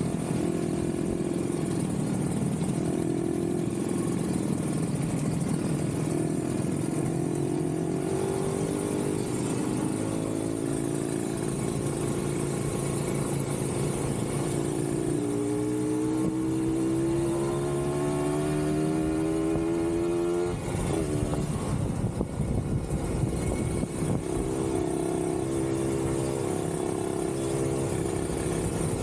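Kawasaki Ninja 150RR's two-stroke single-cylinder engine under way, with a steady rush of wind. The engine note climbs as the bike accelerates, most clearly for about five seconds past the middle, then drops suddenly about twenty seconds in as the throttle closes or a gear changes.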